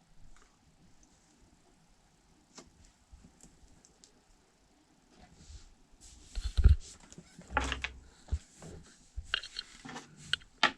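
Several seconds of near quiet with a few faint ticks, then a run of clicks, knocks and rattles from small objects being handled and set down.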